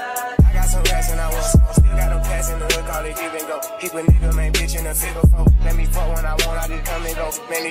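Hip hop background music: long deep bass notes under sharp, regular drum hits.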